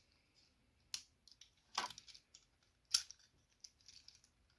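Small plastic clicks from a hand-held plastic transforming robot figure as its parts are handled and tabbed together: three sharper clicks about a second apart, with fainter ticks between.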